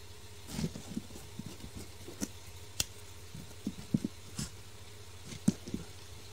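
Hard ceramic bio-filter media pellets (MAYIN Rugby) clicking and knocking against one another as a hand slides them across a cloth-covered table to count them out. Irregular light taps with a few sharper clicks, over a faint steady low hum.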